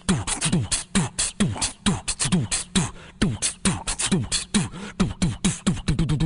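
Fast, busy percussive beat: deep kick-like hits that drop in pitch, with sharp snare- and hi-hat-like clicks packed between them at several hits a second.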